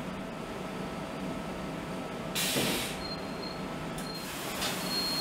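Shipboard waste-processing machinery running with a steady hum. About two seconds in comes a loud hiss lasting about half a second, then a thin high-pitched tone sounds on and off, with a shorter hiss just before the end.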